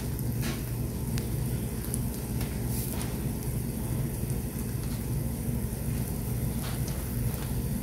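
Steady low hum with a faint hiss, and a few faint light clicks.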